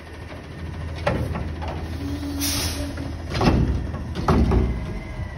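Front-loading garbage truck's diesel engine running while its hydraulic lift arms bring the container down after a dump. Several metal clanks sound from the arms and container, with a short burst of air hiss about halfway through.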